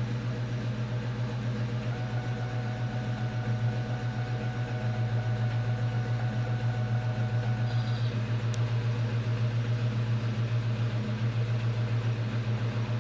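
2002 Ford Mustang GT's 4.6-litre V8 idling roughly with an even, rhythmic pulse: a misfire, which the owner ties to the thread insert fitted in cylinder 3.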